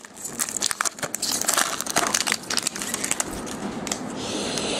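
Trading-card pack wrapper crinkling and cards being handled: a run of quick sharp clicks and rustles, then a steadier crinkling hiss near the end.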